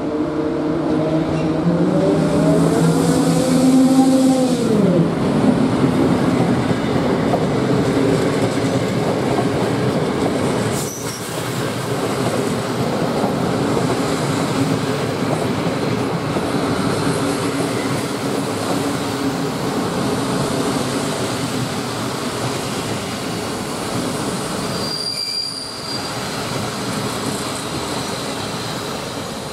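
PKP Intercity EP07 electric locomotive passing with a rake of empty coaches. A whining tone rises and then drops away as the locomotive goes by in the first five seconds. The steady rumble of the coaches' wheels on the rails follows, with a short high squeal near the end.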